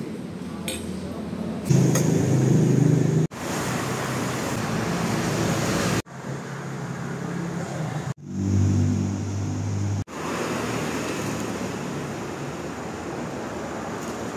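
Street and shop ambience: a steady wash of passing traffic with indistinct background voices. A low engine-like hum swells twice, and the background changes abruptly four times.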